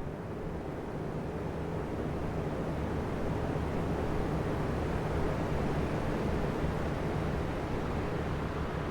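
Three oscillating electric fans running together: a steady rush of air over a low motor hum. The sound swells slowly toward the middle and eases off again as the fan heads sweep.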